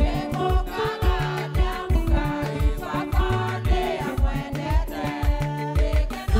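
Gospel choir singing over backing music with a steady, even drum beat and bass.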